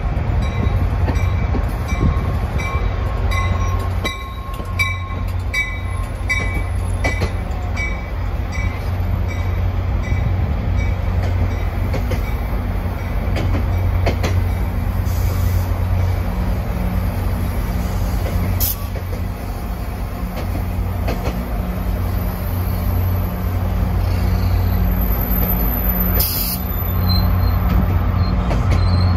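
Diesel train locomotive running steadily with a low engine drone, with an evenly repeated short ringing tone over roughly the first eight seconds.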